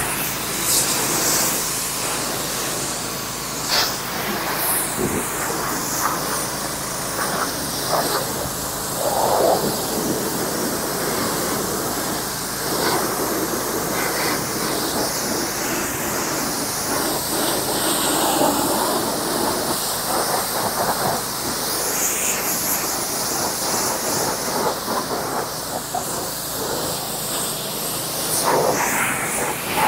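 Pressure washer spraying a Jeep Gladiator pickup during the rinse: a continuous loud hiss of the water jet, its tone sweeping up and down as the spray moves across the truck's panels.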